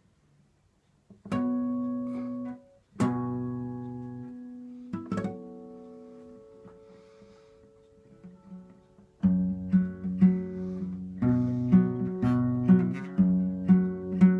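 Acoustic guitar: three chords struck singly and left to ring out, then from about nine seconds in a steady strummed rhythm begins.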